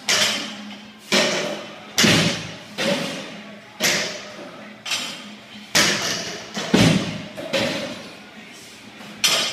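Barbells loaded with rubber bumper plates dropped again and again onto the gym floor and lifting platform, about one heavy thud a second, each followed by a short ringing echo.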